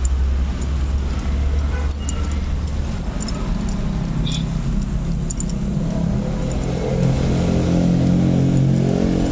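Motor vehicle engine running nearby in street traffic: a steady low rumble that grows louder about two-thirds of the way through. Light ticks and rattles sound throughout.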